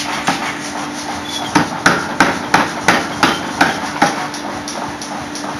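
Power hammer forging a red-hot Damascus steel billet: a run of about eight heavy blows, roughly three a second, starting about a second and a half in, over a steady hum.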